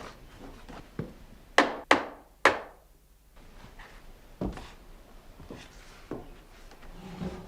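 Heavy knocks on wood: three loud thunks in quick succession about a second and a half in, each with a short ringing tail, and a few lighter knocks before and after.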